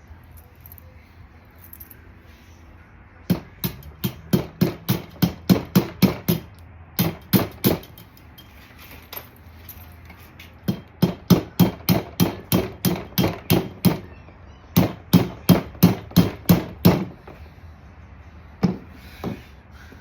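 Hammer strikes in several quick runs of about three blows a second, with short pauses between the runs, during work on a scooter engine's top end.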